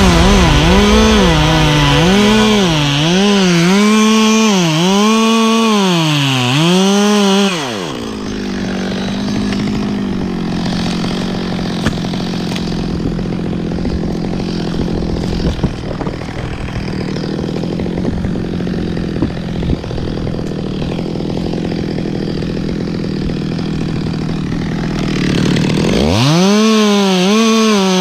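Chainsaw at high revs cutting wood, its engine note rising and falling about once a second as the bar bites. After about eight seconds it settles to a steadier, quieter note with a few sharp cracks. A couple of seconds before the end it is throttled back up into the cut.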